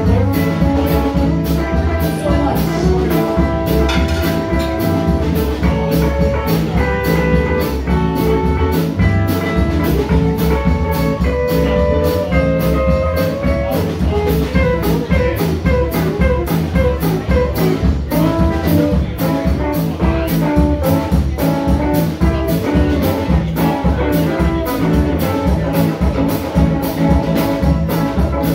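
Live band playing amplified music: electric guitars ringing out sustained notes over a drum kit keeping a steady beat.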